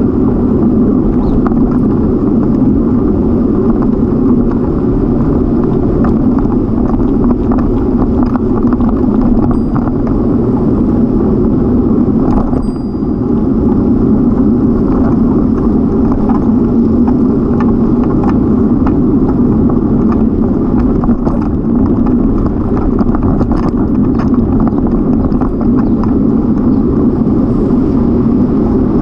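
Steady rushing noise of riding a bicycle: wind on the camera's microphone mixed with tyres rolling over a paved bike path, with a few faint clicks.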